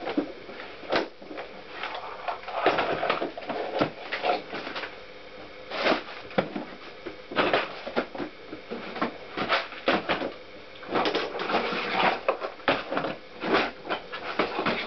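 Rummaging through a workshop's tools and parts: irregular clicks, clatter and knocks of metal things being picked up and moved about during a search for a part.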